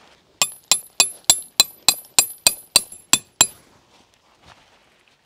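A hammer driving a metal tent peg into the ground: about eleven sharp, ringing strikes at roughly three a second, which stop after about three seconds.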